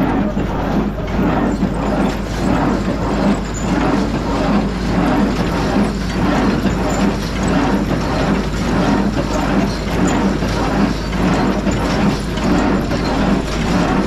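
Oliver 520 square baler running under power, its chains and gears clattering in a steady repeating rhythm of about two strokes a second over the low drone of the tractor driving it.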